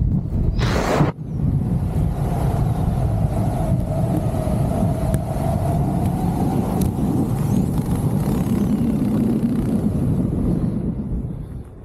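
Wind rushing over the jumper's camera microphone during the descent under an opened BASE parachute: a steady, loud rumble with a faint steady tone in it. A short, sharp burst of noise comes about half a second in, and the wind eases near the end.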